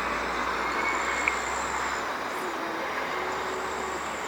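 Steady jet airliner engine noise, a broad rushing sound with a faint high whine, with a single sharp click about a second in.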